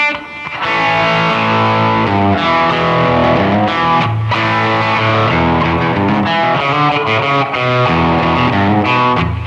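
1971 Gibson Les Paul Custom electric guitar played through an amp with a light crunch (mild overdrive): strummed chords that change every second or so.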